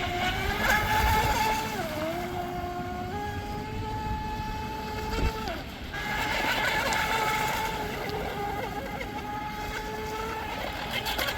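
Electric whine of a small RC mono hull boat's 2600 kV brushless in-runner motor on 3S, running at speed. The pitch climbs as it opens up, dips briefly about two seconds in, drops off at about five and a half seconds, then comes back and holds steady.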